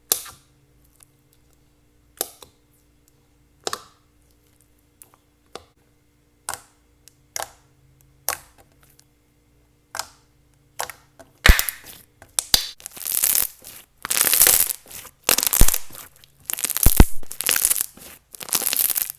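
Thick and glossy slime being pressed and stretched by hand, making loud bubble pops: scattered single pops at first, then a dense run of louder pops and crackles from about halfway through.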